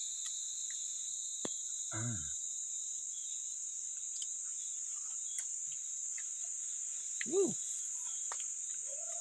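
Continuous high-pitched chorus of forest insects, holding steady throughout, with a single sharp click about one and a half seconds in.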